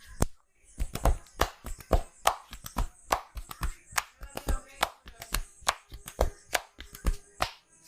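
Hands slapping and chopping on a body in a percussive massage: a quick, uneven run of sharp smacks, about three a second.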